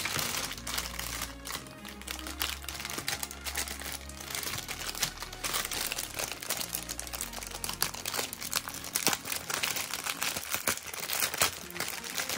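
Thin clear plastic bag crinkling in many small, irregular crackles as hands handle and pull open a bagged toy doll, over background music.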